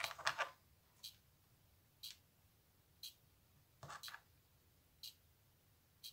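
A clock ticking once a second, with light clicks of hard cured epoxy-resin pieces being handled and set down on a cutting mat near the start and again about four seconds in.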